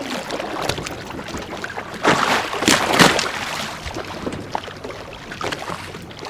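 Sea water splashing and sloshing against a boat's hull around a hooked sailfish at the surface, with a louder burst of splashing about two seconds in.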